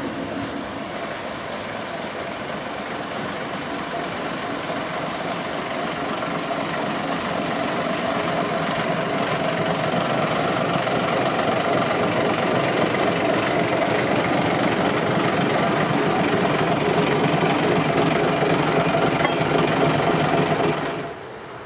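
Diesel shunting locomotive's engine running with a knocking clatter as the locomotive rolls slowly past close by, growing steadily louder as it nears.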